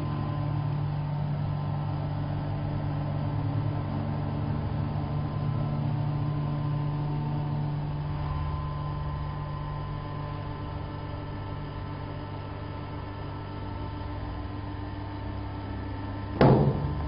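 Lipovak AV-10 chamber vacuum packing machine running with its lid closed, its vacuum pump giving a steady hum while it draws down the chamber. Near the end there is a short, loud burst.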